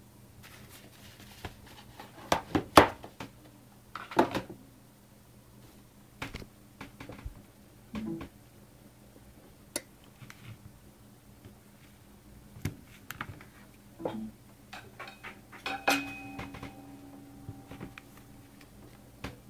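Handling noise: scattered clicks and knocks as a smartphone is touched, picked up and turned over on a wooden desk, the loudest cluster a few seconds in, over a faint steady hum.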